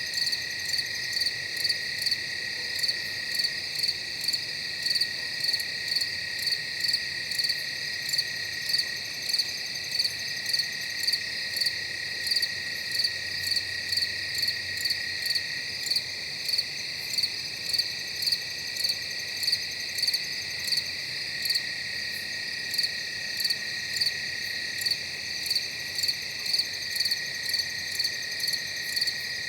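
Night insect chorus: crickets trilling in a steady high drone, with a louder chirp pulsing about twice a second over it.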